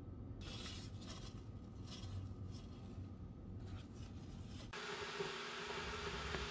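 Irregular soft scuffs and rubbing of a paper kitchen towel wiping up a spill on a stone countertop. After about four and a half seconds this gives way suddenly to an even hiss with a steady low hum.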